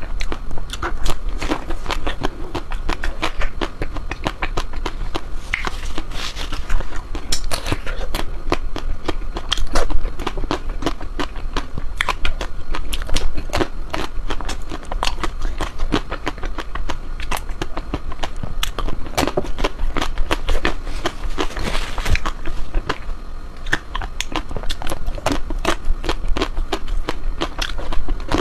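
Ice cream being bitten and chewed: a dense, continuous run of crackling clicks, with a few louder bites now and then.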